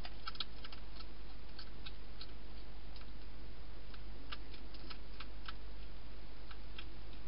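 Wild hedgehog eating dry food: irregular small crunching clicks as it chews, coming in bunches, over a steady low hum.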